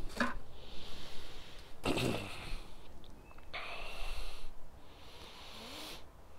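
A person breathing heavily in and out close to the microphone, in rushes of about a second each, with a bump of handling noise about two seconds in.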